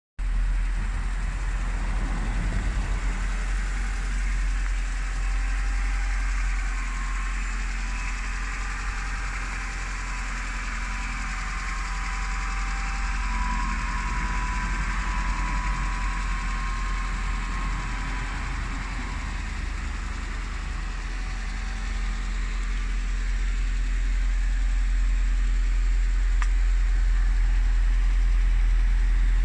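Rover 618i's 1.8-litre 16-valve four-cylinder engine idling steadily, growing louder over the last few seconds.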